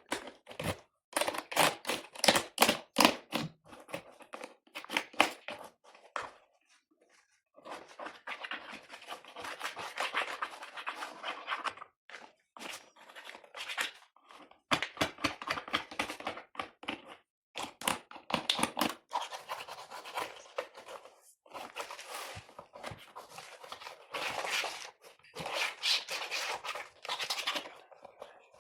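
Computer keyboard being cleaned by hand: runs of sharp clicks and rattles alternate with stretches of scrubbing or scraping, broken by short pauses.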